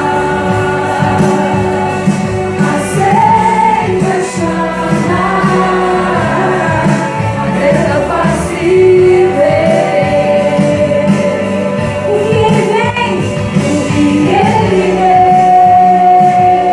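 A woman singing a gospel worship song into a microphone over backing music, holding a long note near the end.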